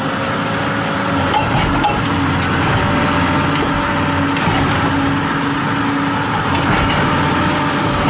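Caterpillar 320D excavator's diesel engine running steadily, with a steady high hiss that cuts out and comes back twice.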